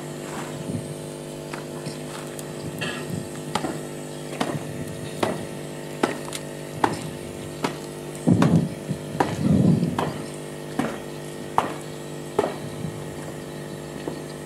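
Marching boots stamping in unison on hard ground, a sharp knock about every 0.8 seconds, over a steady background hum. Two louder rushes of noise break in about eight and nine and a half seconds in.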